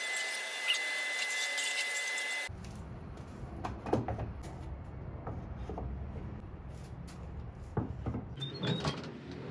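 Shop vacuum running with a steady high whine, cut off abruptly about two and a half seconds in. Then a low rumble with a few scattered knocks and clicks.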